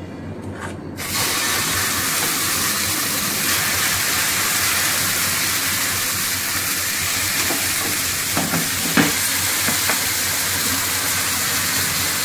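Wet paratha batter sizzling steadily on a hot, lightly oiled nonstick frying pan. The sizzle starts suddenly about a second in, as the batter meets the pan. A few faint knocks of the ladle spreading it come about two-thirds of the way through.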